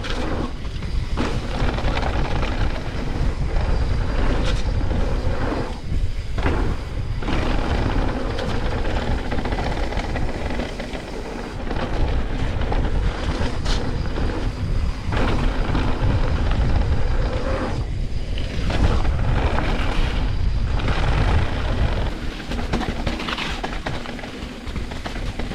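Mountain bike riding down a wet trail: a steady rush of wind and tyre noise, with the bike clattering over bumps again and again.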